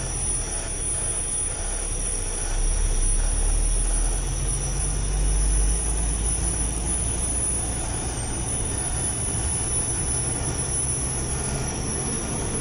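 Mercedes-Benz truck's diesel engine and road noise heard from inside the cab while driving, a steady low rumble that grows louder for a few seconds from about two and a half seconds in.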